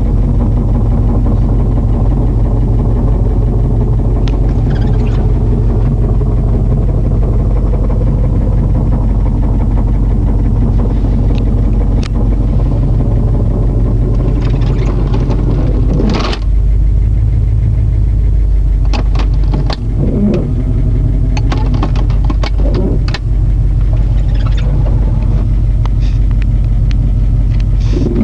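Jeep Grand Cherokee 5.9 L V8 running just after start-up with a steady low rumble, and a strange noise that the owner hears at start-up. Short sharp clicks come and go over the rumble, several in the second half.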